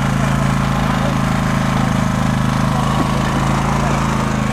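Engine on a fishing boat running steadily, a loud low drone with an even throb.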